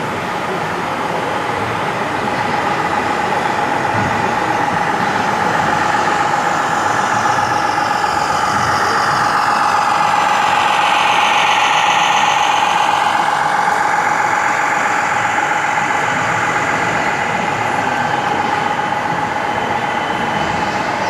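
Radio-controlled scale model truck driving by with a steady engine-like drone and a high whine, growing louder as it passes close about halfway through and easing off after.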